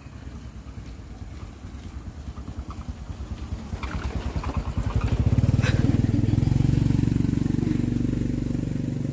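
A vehicle engine running with a fast, even pulse, growing louder over about five seconds and then staying loud.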